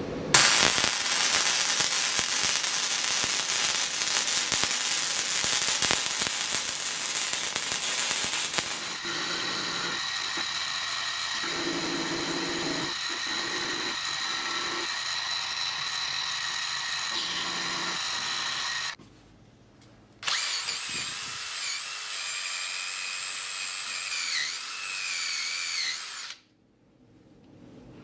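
MIG welder arc crackling and sizzling for about the first nine seconds. Then a milling machine's end mill cuts into a steel block with a steady high whine for about ten seconds. After a brief pause a second machine whine runs for about six seconds, its pitch wavering, and stops shortly before the end.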